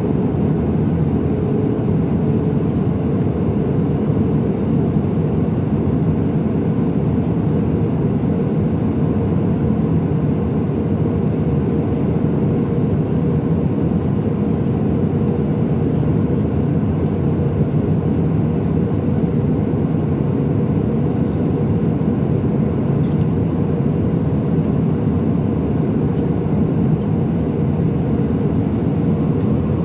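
Steady cabin noise inside an Airbus A319-100 on approach: a low, even rush of airflow and engines heard through the fuselage, with a faint steady hum.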